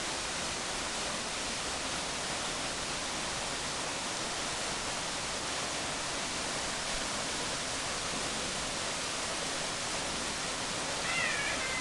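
Waterfall rushing with a steady, even roar of falling water. Near the end a short, high, wavering call briefly rises above it.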